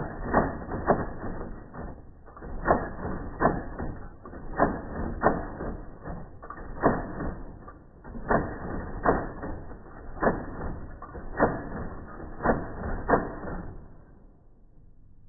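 Smith-Corona Citation Correct XT electric typewriter typing, its keys striking in a run of sharp clacks about one to two a second, played back slowed down. The strikes stop near the end.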